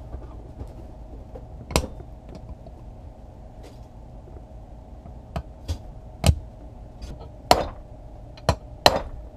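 Hand tools knocking and clinking against the metal casting of a manual bilge pump, about seven sharp, irregular taps, the loudest in the second half, as a stuck threaded part is worked on.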